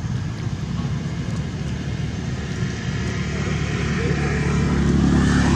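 A motor engine droning steadily, growing louder near the end.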